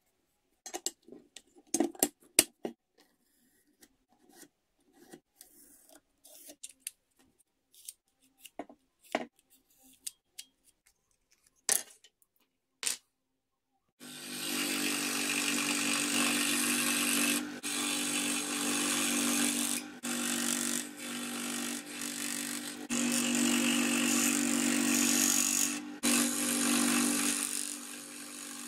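Scattered sharp clicks and rustles from handling paper templates and wooden handle pieces. About halfway through, an electric scroll saw starts abruptly, cutting a wooden handle-scale blank with a steady buzz that dips briefly several times.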